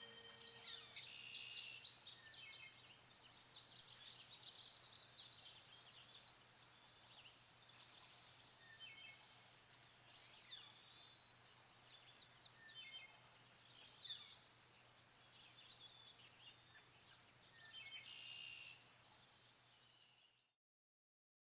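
Several songbirds singing and calling, high thin phrases and quick trills overlapping one another, some louder and nearer than others. The birdsong cuts off suddenly near the end.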